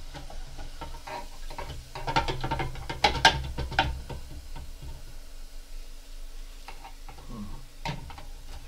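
Kitchenware clattering and scraping, a dense run of clicks and knocks about two to four seconds in, with a few single knocks near the end.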